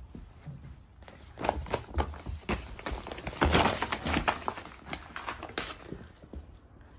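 Wrapping paper crinkling and tearing as a Labrador puppy rips open a wrapped present: a run of quick rustles and rips starting about a second and a half in, busiest around the middle and thinning out near the end.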